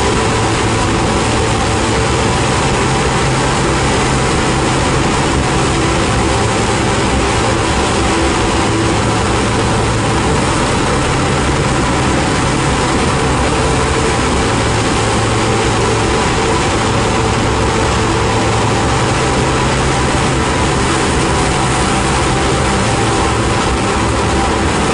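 Loud ambient drone-noise music: a dense, steady wash of hiss-like noise over sustained low humming tones, with a few faint held tones higher up.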